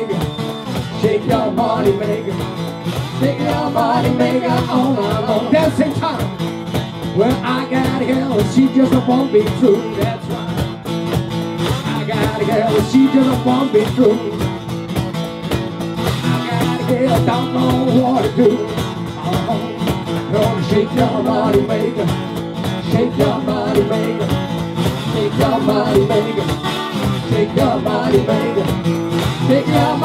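Live acoustic blues: a steel-string acoustic guitar strummed in a steady rhythm, a Meinl cajón slapped by hand, and a man and a woman singing.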